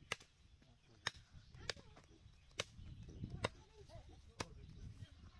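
Knife chopping beef on a wooden log chopping block: six sharp, separate chops about a second apart.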